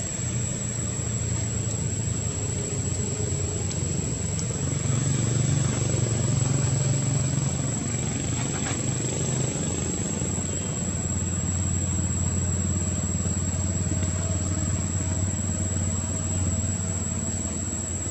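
A motor engine running steadily nearby, a low hum that settles to a slightly lower pitch about halfway through.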